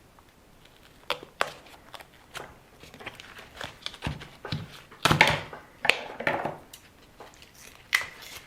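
Hands working on an RC car tyre and wheel: irregular clicks, taps and rustling, with two longer rasping scrapes about five and six seconds in.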